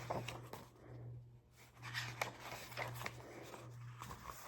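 Faint rustling and light clicks of a picture book being handled and its pages opened, over a steady low hum.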